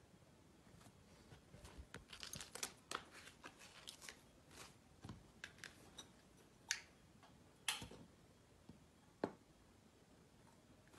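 Quiet handling noises: a busy run of small clicks and knocks in the first half, then three single sharper clicks about a second apart.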